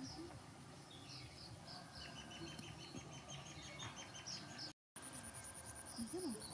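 Faint rural ambience: small birds chirping in quick, repeated high notes over a background of insects. The sound cuts out for a moment about five seconds in, after which a steady, high, rapidly pulsing insect buzz comes in.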